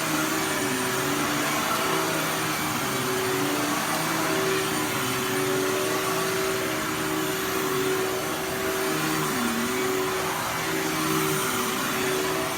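Dirt Devil Ultra Vision Turbo upright vacuum cleaner running steadily, its motor tone wavering and dipping briefly a few times over the rush of airflow.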